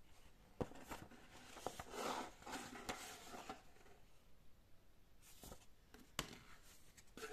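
Paper instruction booklet handled and laid into a cardboard box: faint rustling and sliding of paper, loudest from about two to three and a half seconds in, with several sharp taps and clicks.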